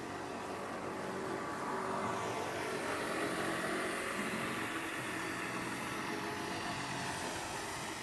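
An engine running with a steady, even hum. It grows louder a few seconds in, then eases off slightly, like a motor passing.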